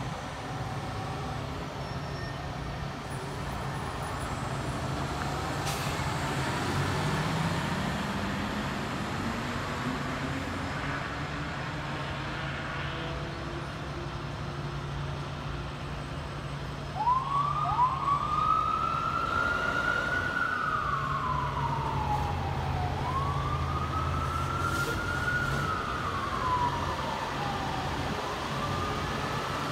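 Fire truck diesel engines running with a steady low rumble. About halfway through, a 2016 Spartan Gladiator/Smeal fire truck's electronic siren starts up in wail mode, rising and falling slowly and repeatedly, and becomes the loudest sound.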